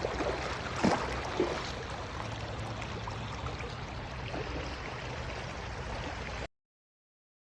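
A steady rushing noise with a low hum beneath it and a few knocks in the first second and a half, cutting off suddenly about six and a half seconds in.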